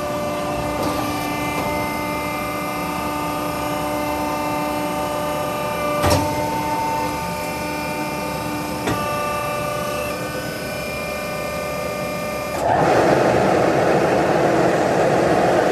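Machinery of a PVC pipe extrusion line running, with a steady whine of several overlapping tones and two sharp clicks. Near the end a louder, even rushing noise starts suddenly and holds.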